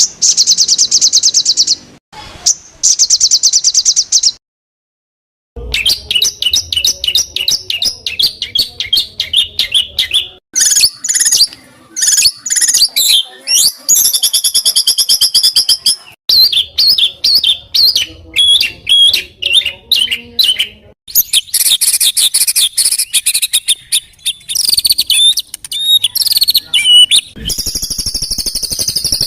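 Edited string of songbird recordings: fast, high trills and rattling, chattering phrases follow one another with abrupt cuts, and there is a brief silent gap about four seconds in.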